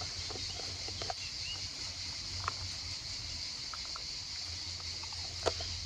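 Steady high-pitched chirring of insects, likely crickets, with a few faint clicks scattered through.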